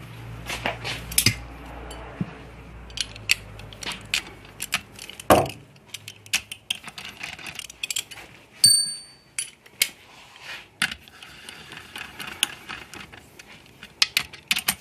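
Metal parts being handled on an aluminium transmission case: scattered small clicks, taps and clinks of bolts and tools, with a louder knock about five seconds in and one short ringing metallic ping near nine seconds. A low hum stops with that knock.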